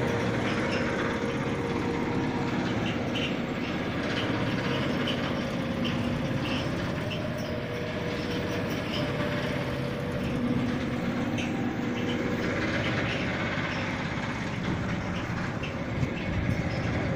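Steady rumble of road traffic with a low engine hum.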